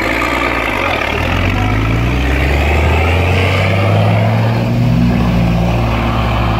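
A Unimog's diesel engine pulls hard under load as the truck wades through a deep, muddy pond, with water rushing and splashing around its big tyres. The engine note rises about a second in and then holds steady.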